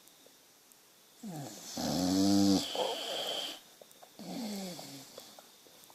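A boxer dog snoring in its sleep: after a second of quiet, one long loud buzzing snore about two seconds in trails off into a hiss, then a softer snore with a falling pitch comes near the end. The owner wonders whether the snoring is a sign of sleep apnea.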